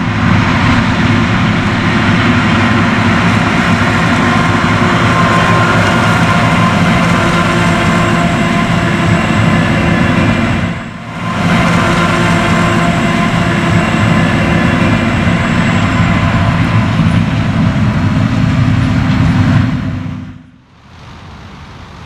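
John Deere 9RX four-track tractor pulling a Kinze 1205 grain cart across the field: steady, loud engine running under load. It dips briefly about halfway through and turns much quieter near the end.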